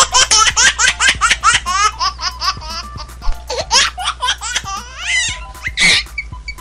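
Small child laughing in quick, repeated high-pitched giggles, with a louder burst near the end.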